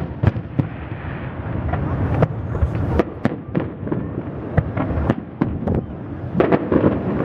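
Distant aerial fireworks shells bursting: a steady run of sharp bangs and cracks at irregular intervals, sometimes several in a second.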